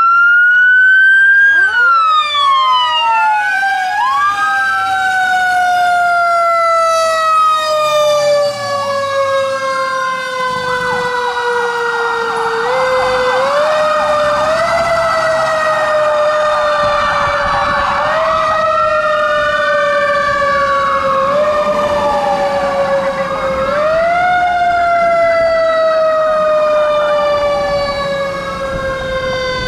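Emergency sirens on a responding fire engine and ambulance. One siren winds up at the start, then falls slowly in long drops and is brought back up several times. A second siren wails up and down over it, with a rapid yelp for a few seconds in the middle.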